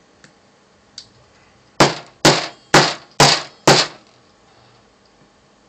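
Five sharp, loud knocks about half a second apart from hand tools working on the Torx screws of a Seagate hard drive's case, after two faint clicks.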